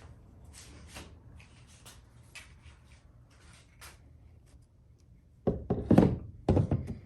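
Kayak seat being put back onto its mounts in the hull: faint clicks and rustles, then a cluster of loud knocks and thuds about five and a half seconds in as it is set into place.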